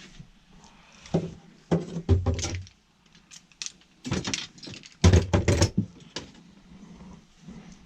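Clattering and knocking in several short bursts, loudest about five seconds in.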